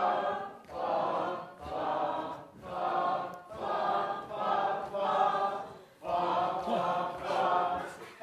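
An audience singing 'fa' together in unison, about eight drawn-out syllables roughly a second apart.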